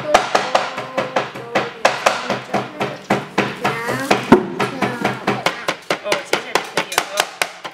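Cleaver chopping mugwort leaves on a wooden cutting board, a quick steady rhythm of about five chops a second.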